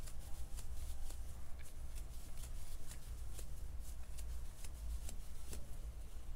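A crochet hook working two strands of acrylic yarn into chain stitches: soft rustling ticks, about three a second, as the yarn is pulled through each loop, over a low steady hum.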